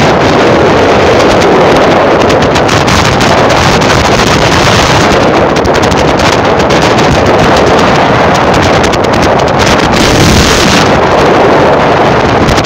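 Loud, steady wind buffeting the microphone of a phone carried along a road in a moving vehicle, with road noise mixed in.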